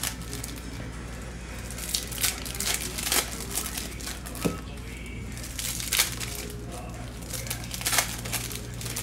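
Foil trading-card pack wrappers crinkling and tearing as Topps Chrome Basketball packs are ripped open by hand, in irregular sharp crackles with louder rips about two, three, six and eight seconds in.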